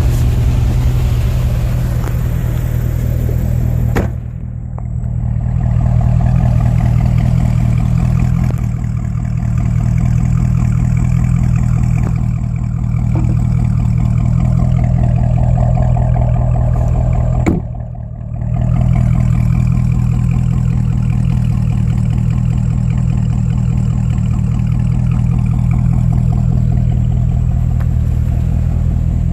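2008 Chevrolet Corvette's V8 engine running steadily with an even low hum. The level dips briefly twice, about four seconds in and again after about seventeen seconds, each time starting with a sharp click.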